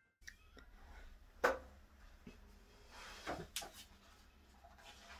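Faint handling noises of a hardback picture book being laid open and pressed flat by hand: a few soft knocks and rustles, the sharpest about one and a half seconds in.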